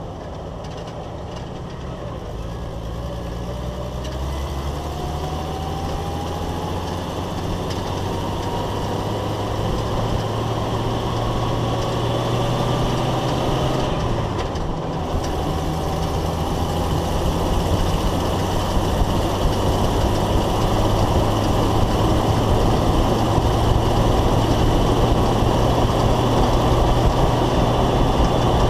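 Jeep Wrangler YJ driving on a paved road, heard from underneath: steady engine, drivetrain and tyre noise that grows louder as the Jeep picks up speed. A faint whine slowly rises in pitch. About halfway through there is a brief dip, and the low engine note breaks.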